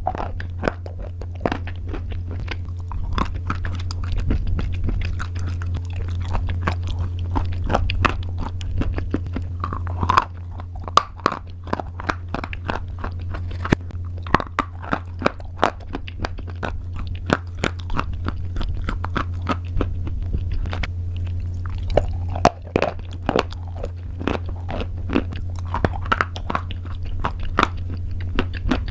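A person biting and chewing crunchy pasta close to the microphone: a dense run of sharp crackling crunches, with a steady low hum underneath.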